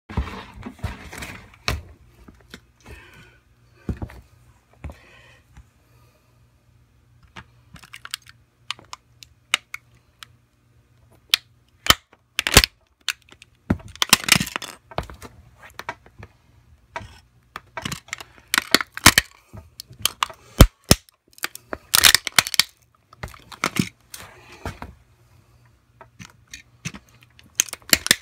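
Toy model Range Rover Sport being crushed under a steel-toe work boot: scattered sharp cracks and snaps as its body, roof and pillars give way, coming in bunches with short quiet gaps between.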